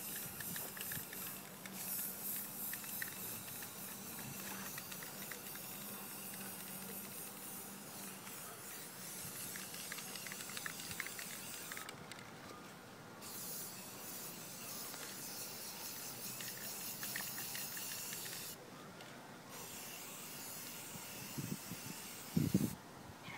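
Aerosol spray-paint can hissing as lines are sprayed, in long sprays with short breaks about halfway through and twice near the end. A few low thumps near the end.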